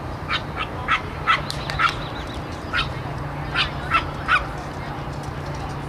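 A dog barking in a quick run of about nine short, sharp, high barks, coming in bunches and stopping a little past the middle.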